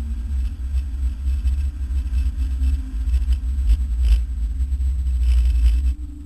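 Car driven at speed on a race track, heard from inside the cabin: engine and road noise as a steady low rumble, dropping in level near the end.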